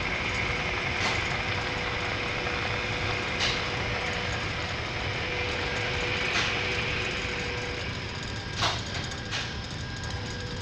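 Metal lathe running with a steady mechanical hum and a faint steady tone that fades out about eight seconds in, followed by a couple of light knocks.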